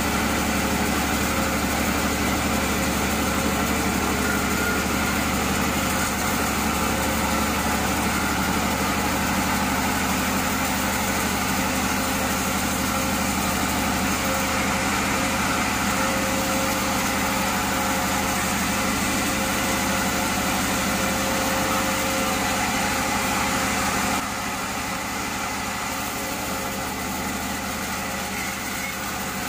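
Band sawmill running and sawing through a large burl log, a steady mechanical drone of motor and blade. It drops a little in level about three-quarters of the way through.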